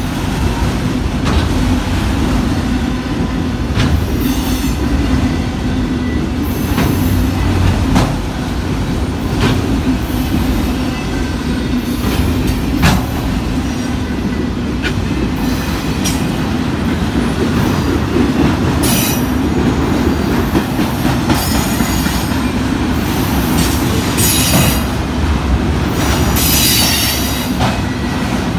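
Freight train autorack cars and flatcars rolling past: a steady rumble with wheels clacking over rail joints, and several short, high-pitched wheel squeals.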